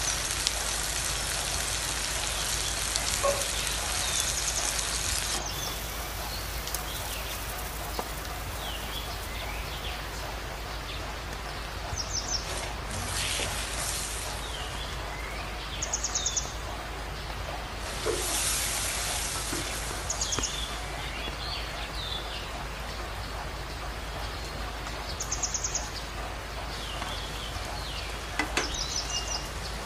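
Masala frying in oil in a wok, a steady sizzle that swells louder for a few seconds at the start, around the middle and again a little later. Birds chirp in short calls every few seconds.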